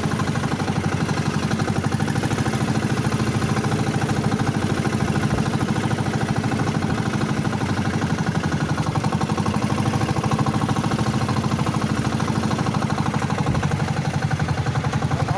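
Outrigger boat's engine running steadily under way, with a fast, even pulsing beat, and water hissing and splashing along the hull and outriggers.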